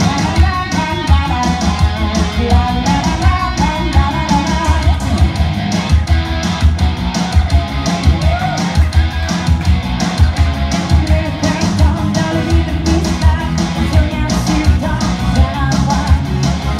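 Live rock band playing: a woman singing into a microphone over electric guitar and a steady beat with a heavy low end.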